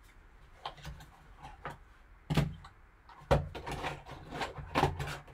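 Cardboard trading-card box and its packaging being handled and opened: a run of scrapes, knocks and rustles, loudest a little past two seconds and just past three seconds in.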